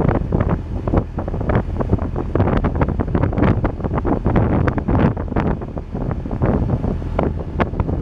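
Wind buffeting the microphone on a moving small boat, in irregular gusts over a steady low rumble.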